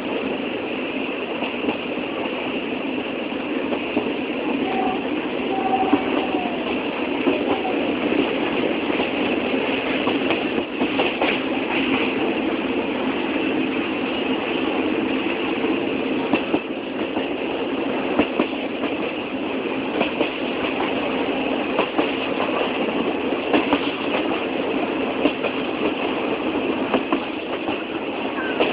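Train running on the rails: a steady rumble and rattle, with clacks of the wheels scattered throughout.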